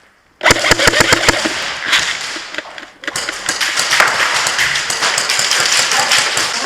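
Airsoft guns firing. A rapid string of about eight sharp shots comes in about half a second in, followed by continuous clattery noise studded with more shots and BB impacts.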